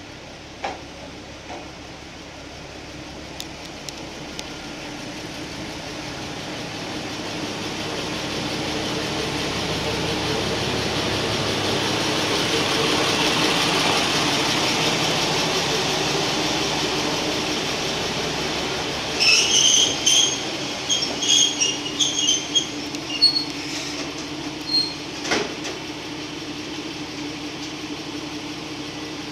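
Single-car diesel railcar pulling into a station, its engine and running noise growing louder as it passes close by. About two-thirds of the way in come a run of short, high-pitched brake squeals as it comes to a stop, then the engine idles with a steady hum.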